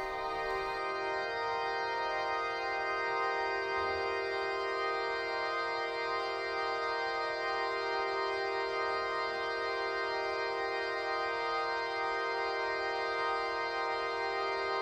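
The 1890 William Hill and Son Grand Organ of Sydney Town Hall holding one dense, sustained chord of many pipes at once, steady and unchanging, its high overtones filling in within the first second.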